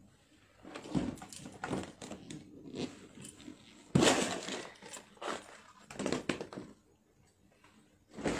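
Clear plastic packet crinkling and rustling as it is handled, with scattered knocks and one sharper thump about four seconds in.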